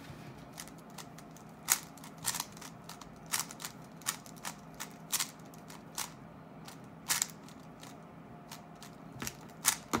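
A 3x3 speed cube's plastic layers clacking as they are turned fast by hand, in irregular runs of sharp clicks.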